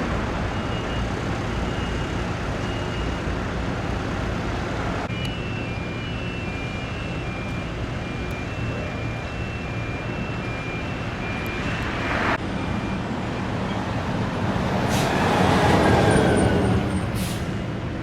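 Steady road traffic noise with vehicle engines running, and a vehicle passing louder about fifteen seconds in. Faint, evenly spaced high beeps sound for stretches.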